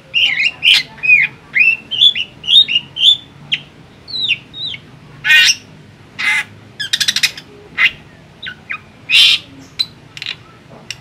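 Caged drongo (srigunting) singing a varied string of short whistled notes, slurring up and down, broken by several harsh, rasping calls, one of them a fast buzzy rattle about seven seconds in.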